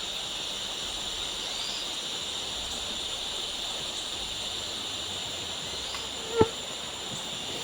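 A steady high chorus of night insects, typical of crickets, with one brief sharp click about six seconds in.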